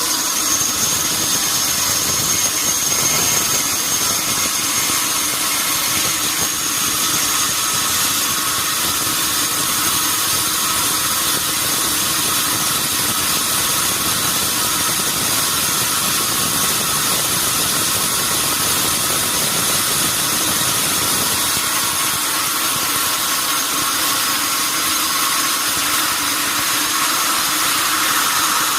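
Sawmill saw machinery running steadily: a continuous mechanical noise with a few steady high-pitched tones.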